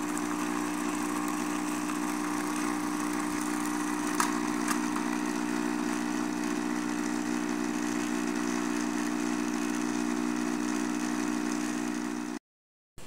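Capsule coffee machine's pump humming steadily while it brews coffee into a porcelain cup, with a couple of light clicks about four seconds in. The hum cuts off abruptly near the end.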